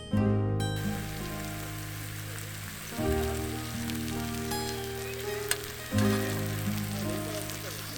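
Meat sizzling and crackling as it grills over a campfire, under background music whose chords change about every three seconds.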